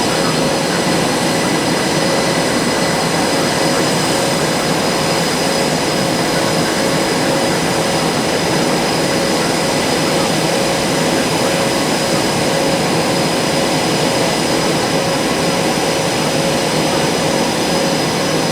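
Boeing F/A-18 Super Hornet turbofan jet engines running steadily at close range: a constant rushing roar with a fixed, high turbine whine over it, neither rising nor falling.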